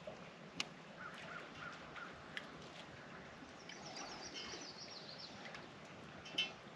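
Quiet sounds of a fish being played on rod and reel: a few sharp clicks and knocks from the tackle, with a bird calling in short repeated notes in the background and a brief rapid high chatter about halfway through.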